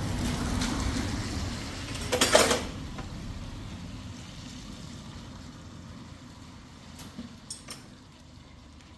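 Low rumble of a passing vehicle fading away, with a short loud clatter about two seconds in and a few light clicks near the end.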